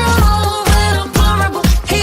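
Dance-pop music with a steady, bass-heavy beat and a pitched melody line.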